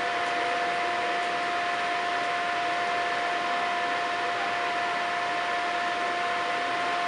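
Steady hiss with a constant high whine from a DB Class 101 electric locomotive moving slowly away in an underground station.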